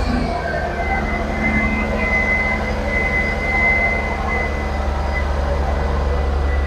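Camry race car's V6 engine running steadily on a freshly mounted exhaust, held at low revs while it warms up so the heat can seat the new exhaust gasket. The exhaust sounds healthy and much quieter than before the repair.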